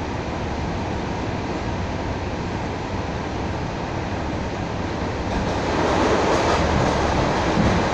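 Steady running noise of an electric commuter train heard from inside the carriage. About five seconds in it grows louder and brighter as another train passes close by on the adjacent track.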